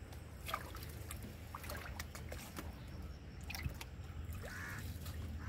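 Water trickling and dripping off a wet fishing net as it is pulled by hand out of the river, with scattered small drips and ticks.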